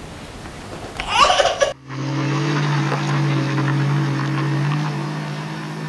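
A toddler's brief laugh, then after a sudden cut a vehicle engine running steadily, a constant low hum under some road noise.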